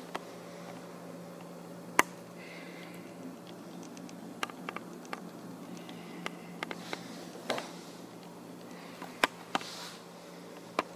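Steady low hum of a running watercooled PC's fans and pump, with a scattered handful of sharp clicks, the loudest about two seconds in and again near nine seconds.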